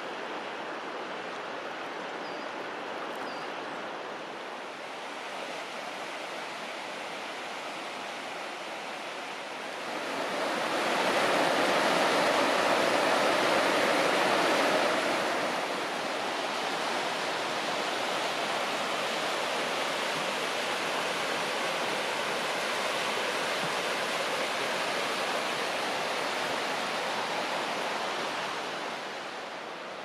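River Avon running high, a steady rush of fast water over rocks and stones. It grows louder about ten seconds in for several seconds, settles somewhat, and is quieter again near the end.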